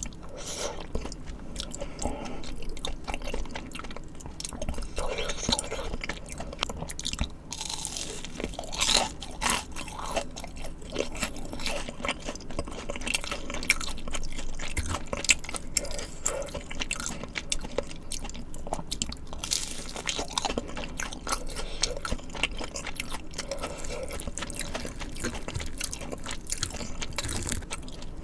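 A person eating tteokbokki and fried snacks close to the microphone: continual chewing and biting with many crisp crunches.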